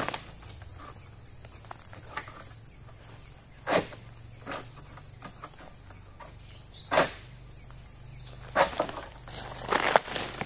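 Steady, high-pitched insect drone, with a few brief, sharp rustling scuffs about four and seven seconds in and several more near the end.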